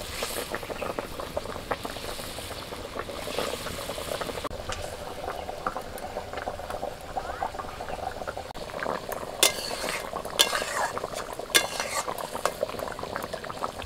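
Fish curry gravy bubbling at a boil in a kadai over a wood fire. A metal spatula stirs and clicks against the pan several times in the second half.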